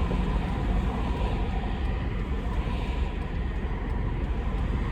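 Steady road and engine rumble of a car being driven, heard inside the cabin.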